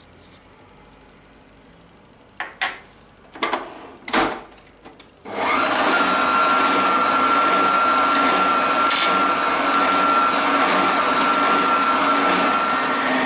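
Electric stand mixer with a wire whisk switched on about five seconds in and running steadily, beating cake batter in its steel bowl, the motor giving a steady high whine. Before it starts, a few knocks and clicks.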